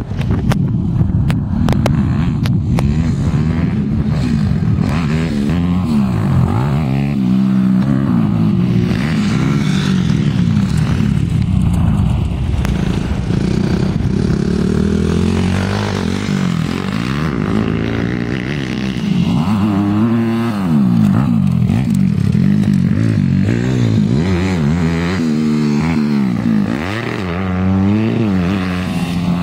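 Dirt bike engines revving hard, two bikes overlapping, their pitch climbing and dropping again and again as the riders accelerate and shift gear.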